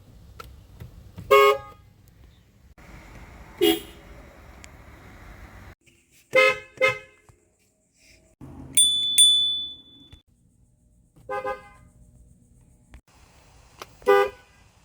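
Car horns honking in a series of short, separate blasts, two of them in quick succession about six and a half seconds in. About nine seconds in comes a higher-pitched beep.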